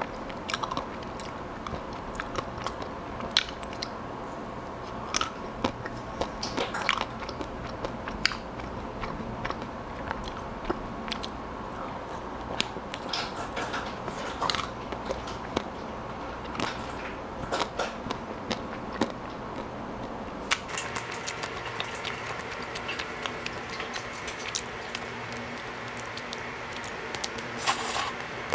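Close-miked biting and chewing of a Häagen-Dazs vanilla almond ice cream bar: its chocolate-and-almond coating cracks and crunches in irregular sharp bites between softer chewing.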